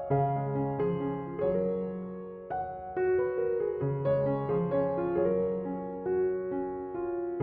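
Gentle background piano music, single notes and chords struck one after another and left to ring.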